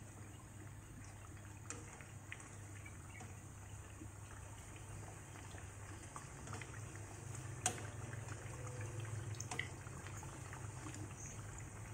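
Battered banana pieces deep-frying in hot oil in a frying pan, a faint steady sizzle and bubbling. Metal tongs turn the pieces, with a few light clicks and one sharper click past the middle.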